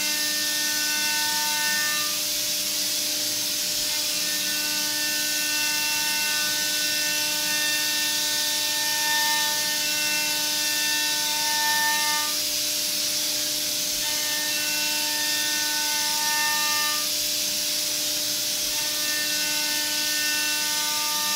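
Doosan DVF 6500 five-axis machining centre cutting metal with a ball end mill, its spindle giving a steady whine over a constant hiss of coolant spray. A higher singing cutting tone comes and goes as the tool engages the surface, breaking off for a second or two about 2, 12 and 17 seconds in.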